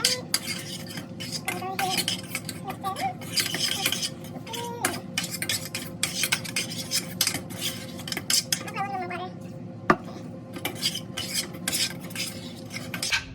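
Stainless steel spoon stirring seasoned ground beef and water in a stainless steel pan: a quick, uneven run of metal-on-metal clinks and knocks against the pan, with one sharper clink near ten seconds in.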